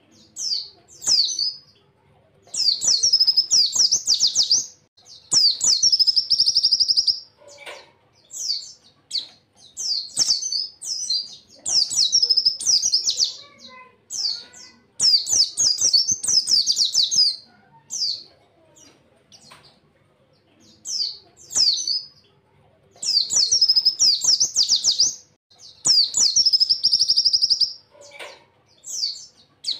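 A pleci (white-eye) singing in rapid, high-pitched chirping phrases of one to two seconds each, about a dozen of them, with short pauses between.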